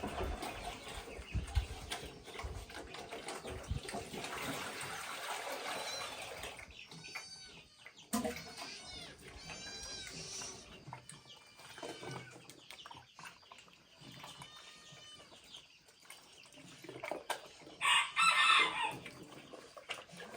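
Chickens clucking and calling around a farmyard, with a rooster crowing once, loudly, near the end.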